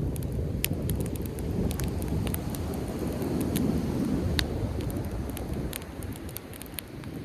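Driftwood campfire crackling, with many sharp pops scattered irregularly, over a low steady rushing of surf and wind that eases a little in the last couple of seconds.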